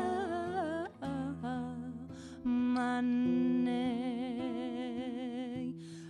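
A woman sings a slow melody with long held notes and a wide vibrato, accompanied by a classical guitar's plucked notes.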